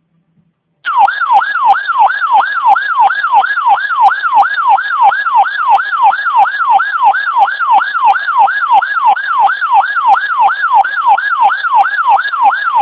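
Electronic weather-alert siren: a loud, rapid sweeping tone, each sweep falling from high to low, about three a second, starting about a second in. It is the alarm sounding ahead of a newly issued severe thunderstorm warning.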